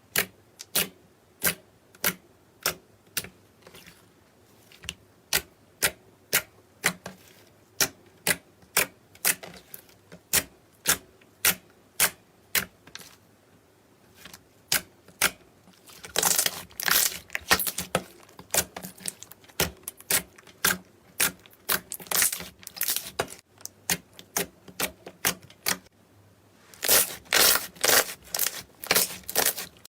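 Slime being worked by hand, giving sharp popping clicks about twice a second, then louder stretches of dense crackling about halfway through and again near the end.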